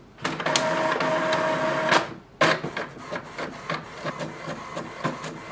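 HP Envy 6075 inkjet printer starting a print: its mechanism runs loudly with a steady whine for about two seconds, stops briefly, then gives a sharp clack followed by a run of quieter clicks and whirs.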